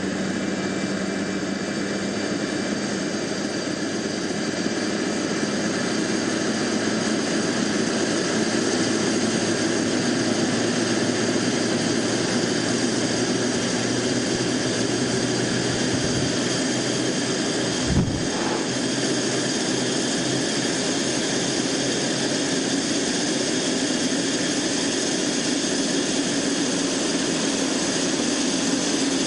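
Jet engines of a Boeing 787 airliner running steadily, a continuous rush with steady whining tones. One dull thump comes about 18 seconds in.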